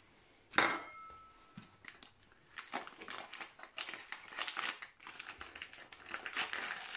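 A porcelain plate set down on a worktop with a short ringing clink, then a paper carton of powdered sugar handled and opened with a long run of crinkling and rustling.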